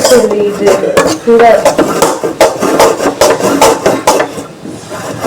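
Voices talking, with utensils knocking and clinking against pots and pans.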